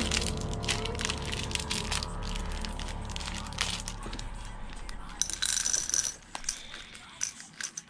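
A plastic candy bag crinkling as it is handled and opened, then small hard candies rattling and clicking as they are poured into a small plastic candy dispenser, most busily about five to six seconds in.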